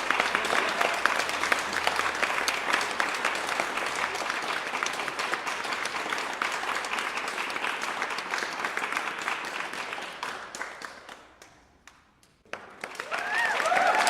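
Large crowd applauding with dense clapping, fading away about eleven seconds in. After a brief hush, screams and cheers rise near the end.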